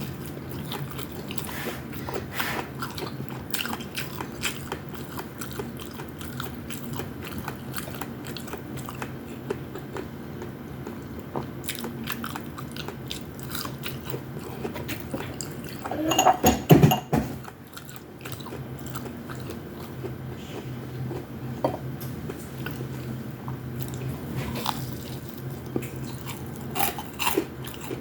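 A person eating close to the microphone: chewing and biting with many small clicks and crunches, over a steady low hum. Just past halfway a brief louder burst stands out.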